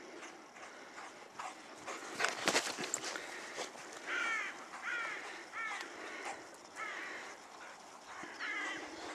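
A series of short, harsh animal calls, about six of them, repeating roughly once a second from about four seconds in, with some brief scuffing noises a couple of seconds in.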